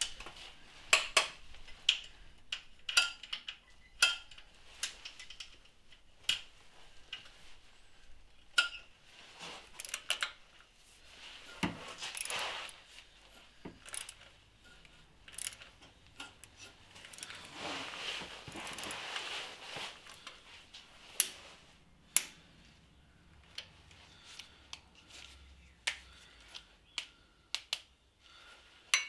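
Scattered sharp metallic clicks and clinks of hand tools as a torque wrench is worked on the crankshaft accessory pulley bolt, with softer handling rustles in between.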